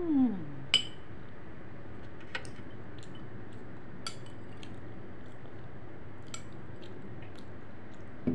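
Metal spoon clinking and scraping against a glass bowl while eating, a dozen or so light, scattered clicks, the loudest about a second in. A short hummed 'mmm' at the very start.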